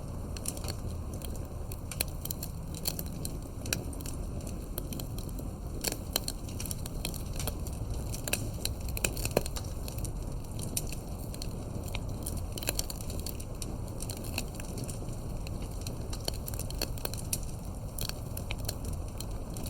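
Wood fire burning, with frequent irregular crackles and sharp pops over a steady low rumble of the flames. The pops come loudest in a cluster about eight to nine seconds in.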